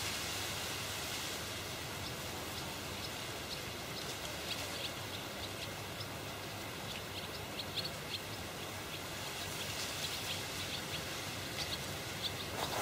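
Quiet riverside ambience: a steady hiss with many faint, short, high chirps scattered through it.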